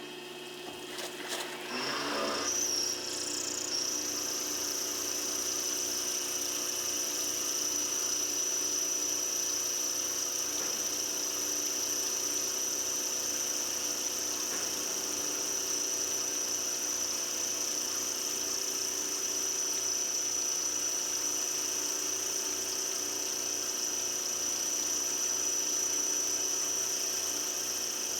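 VariMill II solid carbide end mill side-milling stainless steel on a milling machine. The cut engages about two seconds in, then holds as a steady high whine over the spindle's hum.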